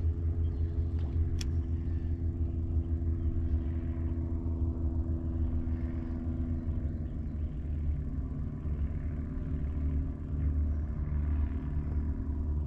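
A boat motor running steadily: a low, even hum with several steady tones above it.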